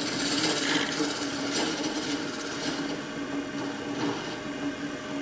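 Wood lathe running, its motor humming steadily, while a turning tool scrapes the spinning cherry burl in a few rasping passes.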